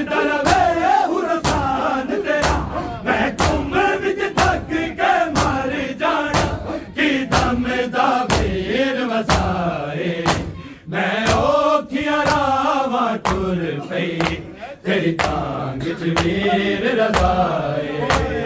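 Male reciters chanting a Punjabi noha, a mourning lament, in a melodic sung line, over a steady beat of sharp impacts, the chest-beating (matam) of the mourners.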